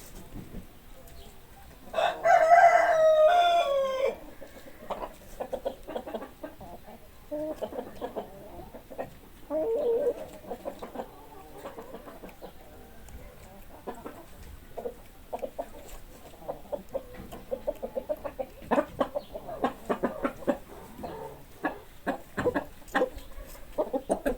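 Chickens on a farm: a rooster crows once, loudly, for about two seconds, then hens cluck on and off, more busily near the end.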